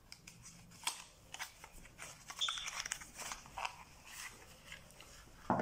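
Small product packaging being handled and opened: irregular rustling, crinkling and light clicks, louder near the end.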